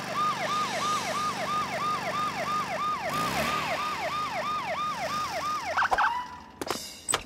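Cartoon police car siren, a fast wail sweeping up and down about three times a second. Near the end it breaks off with a brief high squeal.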